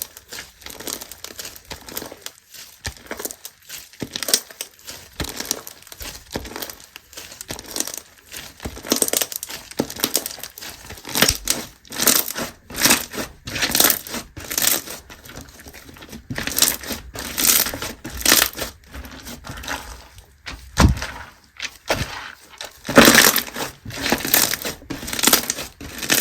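Slime being squished, pressed and stretched by hand, giving a rapid, uneven series of short sticky pops and clicks, louder in clusters in the second half.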